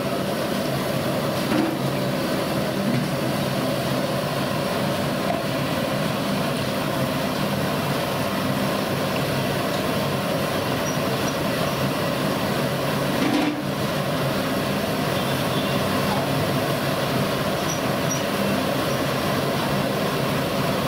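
Vadas deep-frying in a kadai of hot oil: a steady sizzle over a steady low background rumble.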